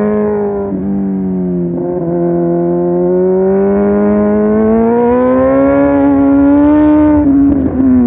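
Motorcycle engine pulling steadily in one gear, its pitch rising slowly for about seven seconds, then easing off a little near the end.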